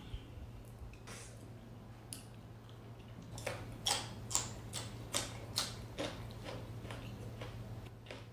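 Close-up mouth sounds of eating with the hands: wet chewing and lip smacks. From about three seconds in they come as a run of sharp clicks, about two a second, over a steady low hum.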